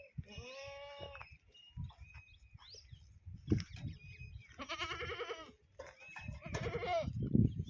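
Goats bleating: three long, wavering bleats, with faint bird chirps between them.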